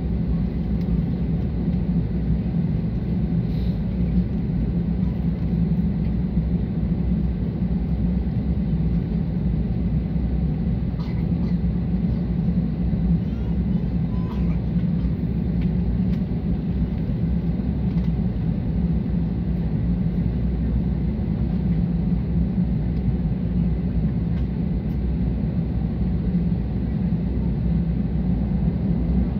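Steady low rumble inside the cabin of an Airbus A320 as it moves slowly on the ground.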